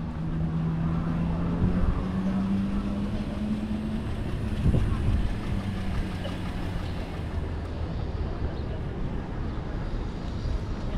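Street traffic: a vehicle engine hums steadily in the first few seconds, its pitch stepping up about two seconds in before it fades, over a constant low rumble of traffic.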